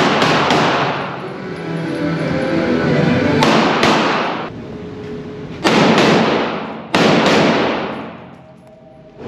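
Pistol shots fired in quick pairs, four double taps, each crack ringing out in a long echo inside an indoor shooting range.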